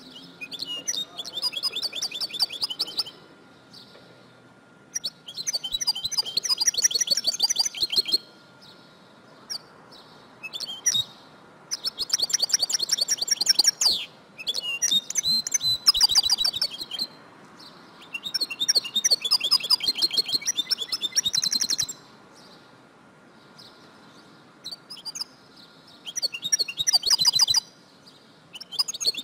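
Female European goldfinch twittering: quick runs of high chirps in phrases of two to four seconds, about seven of them, with short pauses between.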